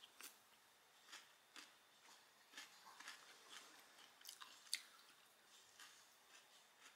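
A person chewing Cinnamon Toast Crunch cereal in milk: faint, irregular crunches, the sharpest one about four and a half seconds in.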